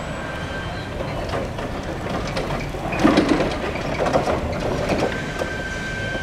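BT Reflex RRE-140 electric reach truck driving: a steady high whine from the electric drive, with rattling and knocks that are loudest about three seconds in.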